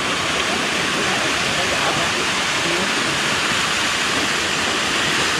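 Water rushing down a low concrete spillway into a shallow stream: a steady, even rushing noise.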